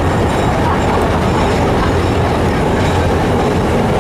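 An old Peter Witt-style tram heard from inside its wooden driver's cab while it runs along the rails: a steady rumble of wheels and running gear under an even low hum.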